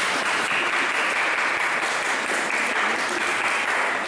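Audience applauding: steady hand-clapping from a crowd in a large hall.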